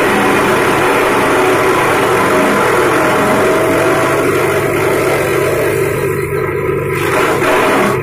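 Grass chopper machine's motor running steadily at a constant speed, with a brief dip in its higher sound about six seconds in.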